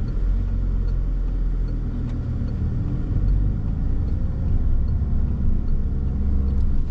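Cabin noise of a Citroën car on the move: a steady low engine and road rumble heard from inside.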